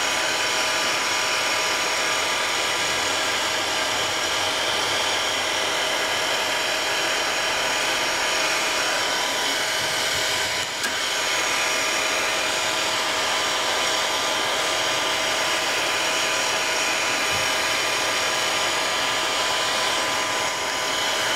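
Handheld electric heat gun running steadily: a constant blower hiss with a faint steady motor whine, heating a Kydex sheet until it softens for forming. The level dips briefly about halfway through.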